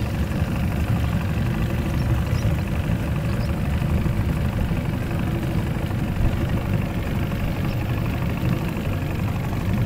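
Motorboat engine running steadily, heard from aboard the boat towing the tube.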